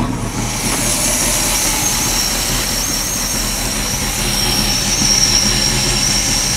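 Chevy 305 V8 marine engine running, with a steady high-pitched belt squeal that sets in about a second in and grows louder near the end: a loose power steering belt slipping.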